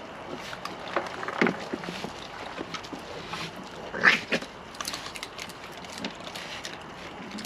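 A group of wild raccoons feeding and jostling: scattered clicks and scuffling with a few short raccoon calls, the loudest about four seconds in.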